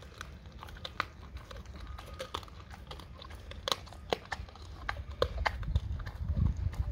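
A dog biting and chewing a raw salmon head, with irregular sharp cracks and crunches as its teeth work the fish's head. A low rumble rises near the end.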